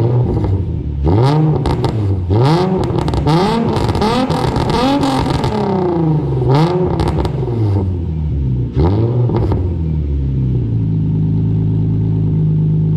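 Nissan 350Z's V6, running through test pipes with the muffler deleted, revved hard again and again for about ten seconds with sharp pops as the revs fall, then settling to a steady idle. It is crazy loud.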